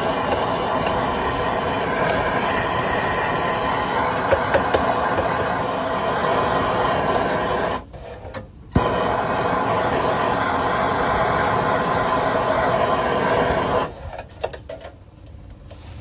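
Torch flame burning with a steady rushing hiss as it melts ice off an exhaust fan's blades. It cuts out just before the 8-second mark, comes back on with a sharp click about a second later, and shuts off about two seconds before the end.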